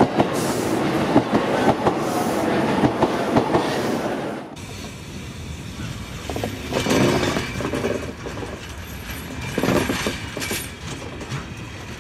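JR Chūō Line E233-series electric commuter train rolling by, its wheels clicking sharply over the rail joints in small groups. After about four and a half seconds the sound cuts abruptly to a quieter, less distinct passage.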